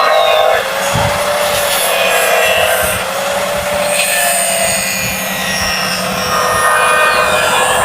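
Electric grinder running and cutting into the work, its motor tone dipping and recovering as it is loaded, over a dense hiss.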